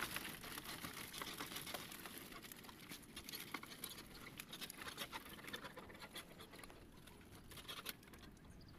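Faint, irregular clicks and patter from live fish flapping inside a wire-mesh screen fish trap while the trap is handled.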